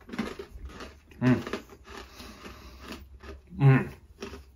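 A man chewing a crunchy banana bread biscotti, with soft crunching and clicks, and two loud drawn-out "mmm" sounds of enjoyment, one about a second in and one near the end.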